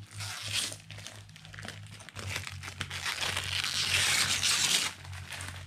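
Thin clear plastic protective film being peeled off a new motorcycle's plastic side panel and crinkled in the hands, growing loudest in the last couple of seconds and dropping off just before the end.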